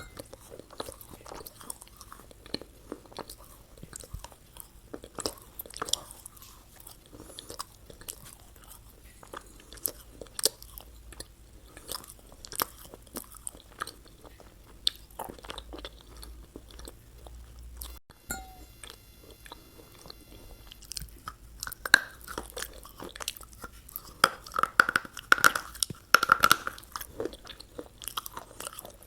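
Close-miked ASMR chewing and crunching of a McDonald's fast-food meal: a steady run of small wet crackles and bites, with a short cut-out about two-thirds of the way through and louder, denser crunching after it.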